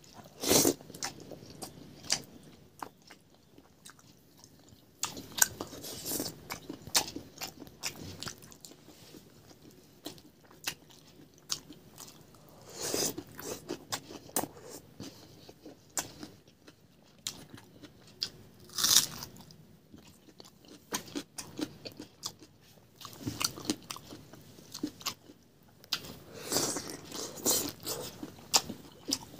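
A person chewing and crunching food eaten by hand, with many small clicks and a few louder stretches of crunching spread through.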